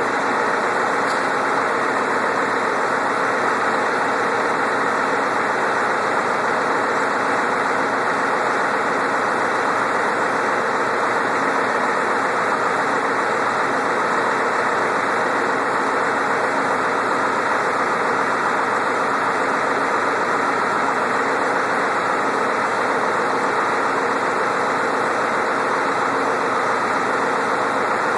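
Freshly rebuilt Ford 7.3 IDI turbo diesel V8 idling steadily.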